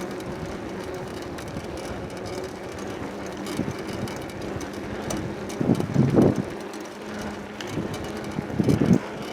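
Riding a bicycle while filming: steady rolling and rattling noise with wind on the microphone, swelling briefly about six seconds in and again near nine seconds.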